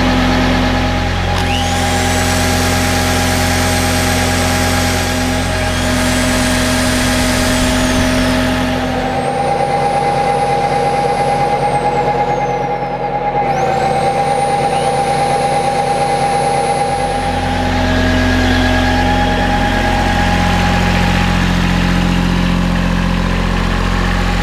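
Kubota B7100 tractor's three-cylinder diesel running steadily and turning a NorthStar PTO generator. Over it, an electric drill powered from the generator is run several times, each time whining up to speed and then winding down.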